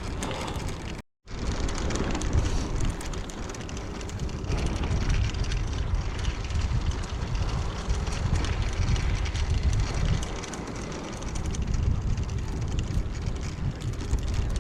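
Wind rumbling on the microphone while riding a bicycle along a road, a steady low noise. The sound cuts out for a moment about a second in.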